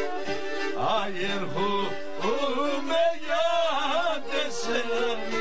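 Several Pontic lyras (kemenche) play a Pontic folk tune together, with steady drone notes held under the melody. From about a second in, a man's voice sings a long, wavering melismatic line over the lyras.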